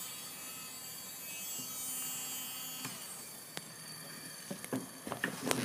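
A spinning gyroscope rotor whirring steadily in its metal gimbal frame, with a few sharp metallic clicks and knocks in the second half as the frame is handled and moved.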